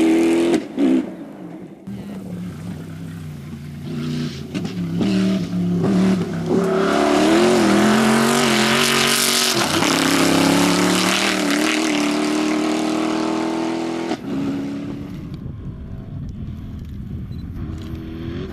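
Rally car engine running hard, its revs rising and falling through gear changes and lifts off the throttle. A loud full-throttle stretch in the middle drops off suddenly about fourteen seconds in, and the engine runs on more quietly after that.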